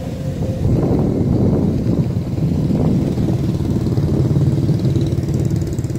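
Kubota DC-105X combine harvester running, its diesel engine and machinery making a loud, steady drone.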